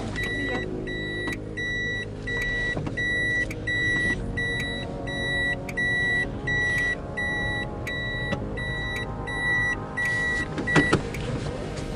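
Toyota's in-cabin reverse warning beeper sounding a steady high beep about twice a second while the car backs up, stopping shortly before the end.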